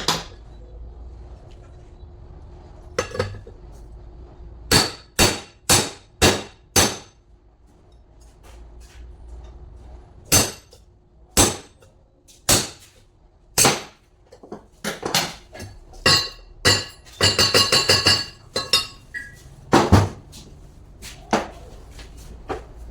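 Hammer striking metal: sharp, ringing blows in irregular groups, a few about half a second apart, then slower single strikes, then a fast run of blows.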